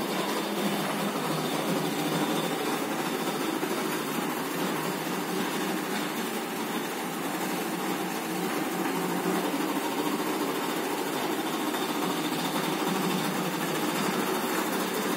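Large-format roll vinyl laminating machine running, its motor-driven rollers drawing printed vinyl through under laminating film: a steady mechanical hum with a hiss, no separate knocks.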